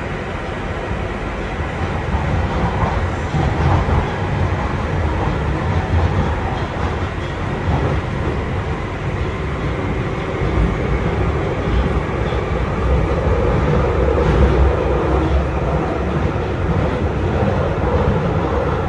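London Underground Northern line 1995-stock train running at speed through a tube tunnel, heard from inside the carriage: a steady rumble of wheels on rail with some clickety-clack.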